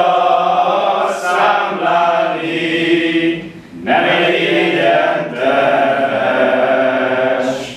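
Several voices singing together in two long, drawn-out phrases, with a short break for breath about four seconds in.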